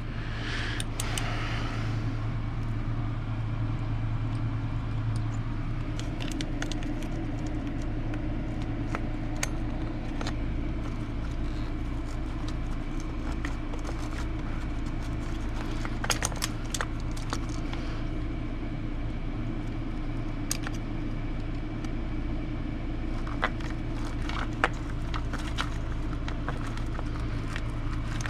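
Scattered light clicks and small metallic rattles of hand tools and loose parts during disassembly of an RC truck, over a steady low hum.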